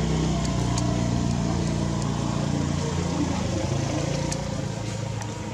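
A motor vehicle's engine running with a steady low hum, fading off near the end, with a few faint clicks over it.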